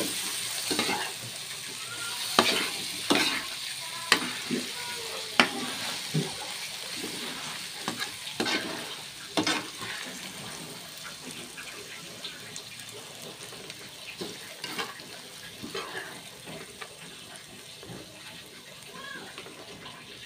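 Eggplant, fried anchovies and chili paste sizzling in a pan while a spatula stirs and scrapes them, with sharp clacks of the spatula against the pan. The clacks come often in the first half and thin out later, while the sizzle carries on, gradually quieter.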